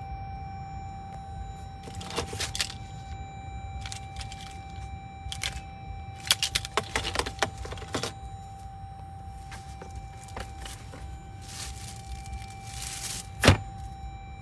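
Car key fobs and plastic wrapping being handled on a car's centre console: several short bursts of clinking and rustling, busiest in the middle, over a steady low cabin hum. A single sharp knock near the end is the loudest sound.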